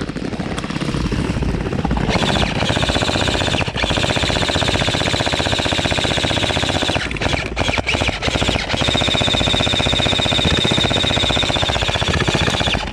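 Airsoft rifles firing in long, rapid full-auto strings, a fast rattle of shots with brief pauses about four seconds in and again around seven to nine seconds in.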